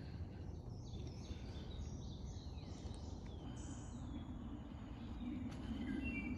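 Songbirds chirping and giving short down-slurred calls over a low steady rumble of background noise, which grows a little louder near the end.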